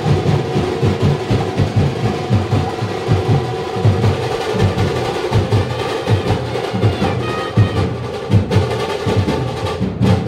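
Fast, loud drumming: a dense, steady run of low drum strokes, several a second.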